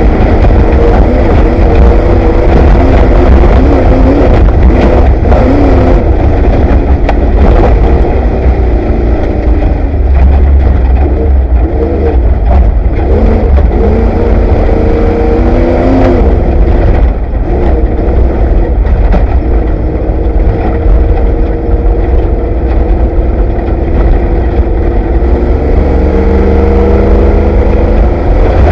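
Ford Bronco off-road race truck's engine heard from inside the cab, revving up and down repeatedly as it is driven at race pace, over a loud, constant low rumble.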